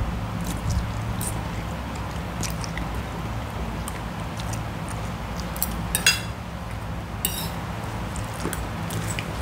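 Eating sounds: rice noodles slurped and chewed, with scattered light clinks of metal cutlery on plates. A steady low hum runs underneath, and a brief sharper clink or slurp stands out about six seconds in.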